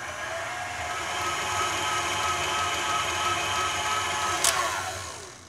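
KitchenAid tilt-head stand mixer running at high speed, its flat beater whipping lemon buttercream until light and fluffy, with a steady motor whine. Near the end there is a click and the motor winds down.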